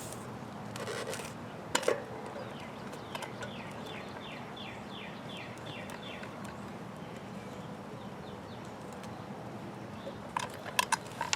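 A small bird calling in a quick series of short, high chirps, about three a second, for a few seconds over steady outdoor background noise. A few sharp clicks of handling come near the start and again near the end.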